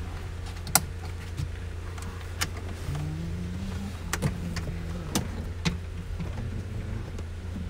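Sharp plastic clicks and knocks, about half a dozen, as a BMW X5 door trim panel is handled and fitted back onto the door, over a steady low hum. A brief rising tone sounds about three seconds in.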